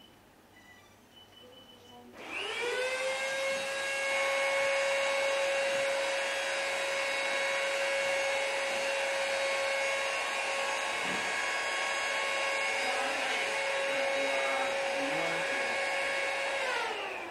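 Handheld vacuum cleaner switched on about two seconds in, its motor spinning up to a steady whine. It runs for about fifteen seconds, then is switched off and winds down near the end.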